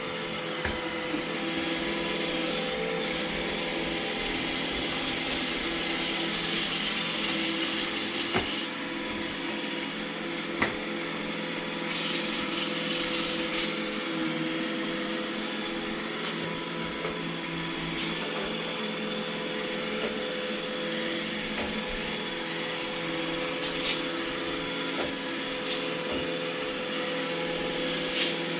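iRobot Roomba E6 robot vacuum running: a steady whir of its motors and spinning brushes, with a few sharp clicks now and then as it works.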